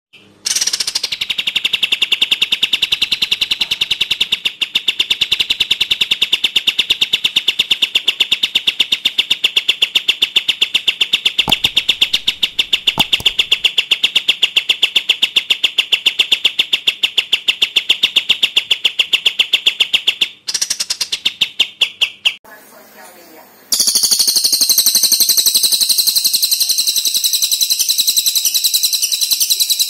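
Recorded songs of a kapas tembak bulbul and a crested jay (cililin) played back as a songbird training track: a long, fast, rattling trill of even notes that breaks off about twenty seconds in, then after a short gap a higher, harsher rapid trill.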